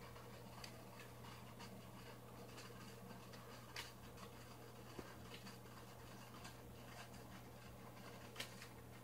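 Near-silent room tone: a faint steady low hum with a few soft, scattered clicks, the clearest a little under four seconds in, at about five seconds, and near the end.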